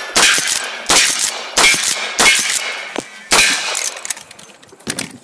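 A quick string of five rifle shots, about two-thirds of a second apart, at steel plate targets, some followed by a short metallic ring as the steel is hit. Quieter clicks and clatter follow near the end.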